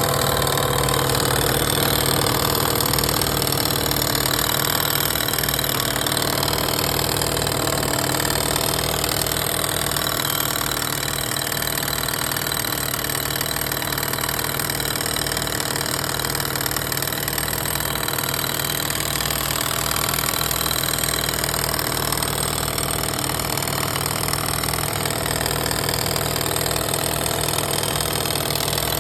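Yamaha Jog 3KJ scooter's 50cc two-stroke engine idling steadily and making an abnormal noise, which the owner suspects is a sign of piston seizure.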